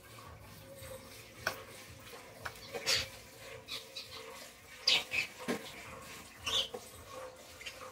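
A water buffalo calf suckling at its mother's udder, making irregular short wet sucking and smacking sounds.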